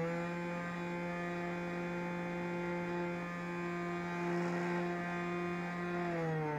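Brushless electric motor and propeller of an FPV flying wing, heard through the onboard camera: a steady buzzing hum. Its pitch steps up slightly at the start and glides down near the end as the motor slows.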